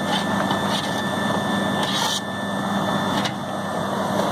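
Walk-in freezer condensing unit running steadily: the compressor humming and the condenser fan blowing, back in operation with its shorted defrost timer replaced. A brief hiss about two seconds in and a click a little after three seconds.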